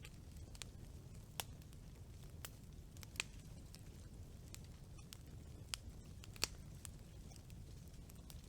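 Wood campfire burning: a low steady rumble of flame with sharp, irregular crackles and pops from the burning wood, a few of them louder.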